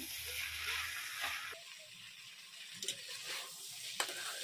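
Soaked rice and vegetables sizzling in oil in a metal kadhai while a metal ladle stirs them, roasting the rice before the water is added. The sizzle stops abruptly about a second and a half in, leaving quieter stirring with a couple of sharp clicks of the ladle against the pan near the end.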